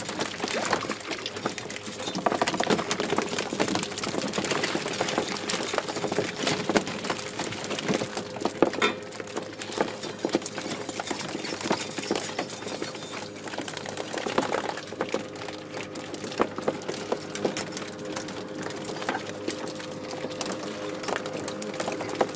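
Fast, irregular clicking and rattling of fishing gear at a small boat's rail and line hauler, over a steady engine hum.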